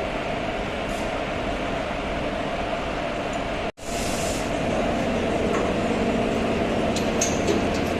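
Tirupati Express passenger train running: steady rail noise of the coach on the track. The sound cuts out abruptly a little under four seconds in, comes back slightly louder, and a few short clicks come near the end.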